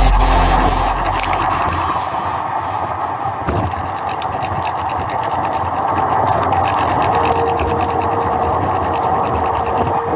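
Riding noise picked up by a camera on a moving bicycle: a steady rush of wind and road with rapid, irregular rattling and ticking from the bike. A low sound fades out over the first second or two.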